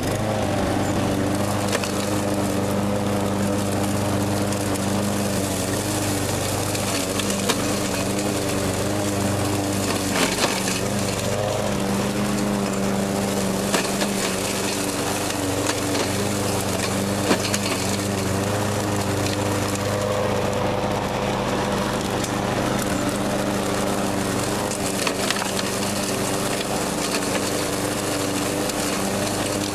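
Troy-Bilt TB360 walk-behind mower engine running steadily while the mower mulches dry leaves, with a few sharp cracks of leaves and twigs hit by the blade.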